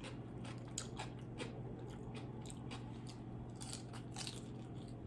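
Close-up eating sounds: crisp bites and chewing of crispy fried tilapia, a run of short, irregular crunches.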